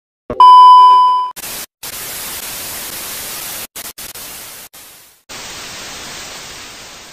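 TV test-card sound effect: a loud, steady beep lasting about a second, then analogue TV static hiss that cuts out briefly several times.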